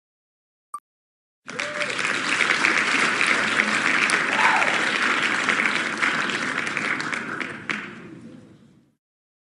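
A last tick from an online spinning-wheel picker as it stops, then the site's recorded applause sound effect for the winner. The applause starts about a second and a half in and fades away near the end.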